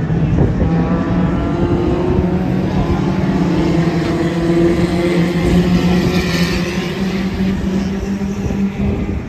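A pack of Junior Rods, small hatchback oval racing cars, running hard around the track with several engines going at once. The noise swells about six seconds in as cars pass closer.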